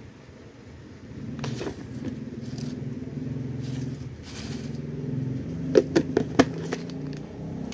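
A steady low motor hum runs under the handling of a plastic jar full of rolled paper slips. A few sharp clicks and knocks come a little before and after six seconds as the jar is turned in the hands.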